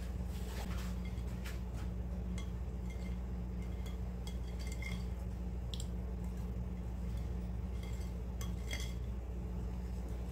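Wire whisk stirring flour into chocolate cake batter in a glass bowl, its wires clicking and clinking against the glass now and then. A steady low hum runs underneath.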